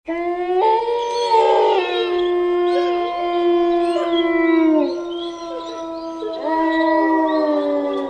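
A pack of dogs howling together: several long overlapping howls that start suddenly, hold steady, then slide down about four to five seconds in. A fresh wave of howls rises a little after six seconds in.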